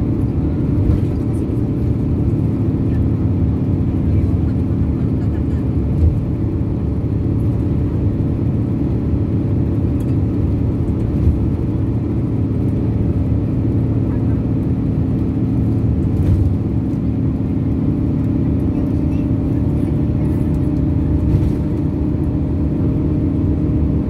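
Steady low rumble of a bus's engine and tyres heard from inside the cabin while cruising on an expressway, with a steady hum running through it.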